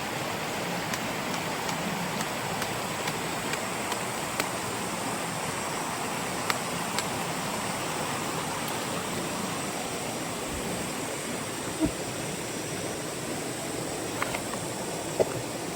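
Stream water flowing in a steady rush, with a few small clicks and taps scattered over it.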